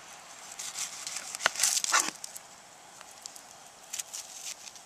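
Kitchen knife cutting the end off an onion on a plastic cutting board: a sharp tap of the blade on the board about a second and a half in, then half a second of crisp crunching, with a few fainter clicks near the end.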